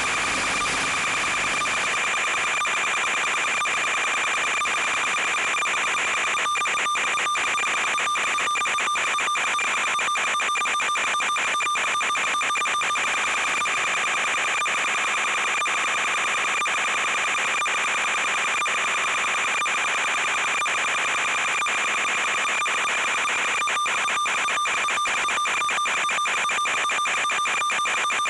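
Steady electronic buzz with a high whine, typical of interference on an analog FPV video link's audio. Rapid crackling clicks run through it from about six seconds in and again over the last few seconds.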